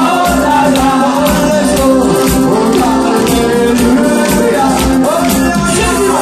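Live party band music: a man singing lead into a microphone over a steady drum beat, with the band's guitar and other instruments backing him.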